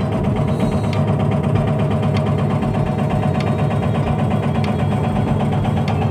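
Backhoe's diesel engine running steadily with a fast, even clatter, and a sharper tick about every second and a quarter.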